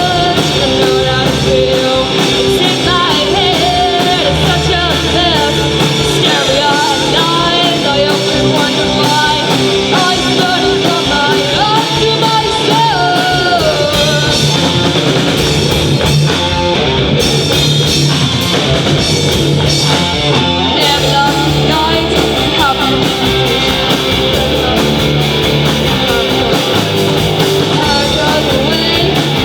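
A rock band playing a song live, with guitar, drums and a singer's vocal line.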